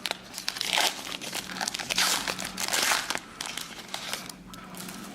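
A plastic baseball-card pack wrapper being torn open and crinkled by hand, in irregular rustling bursts that are loudest in the middle and die down over the last couple of seconds.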